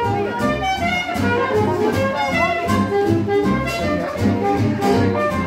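Small live jazz band playing an upbeat swing tune: a horn melody over piano, with a bass line keeping a steady beat.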